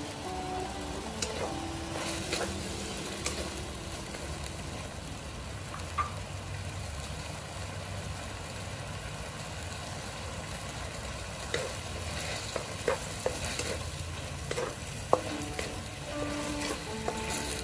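Beef stir-fry sizzling and bubbling steadily in sauce in a wok. In the second half, a wooden spatula stirs the meat, with sharp clicks and scrapes against the wok.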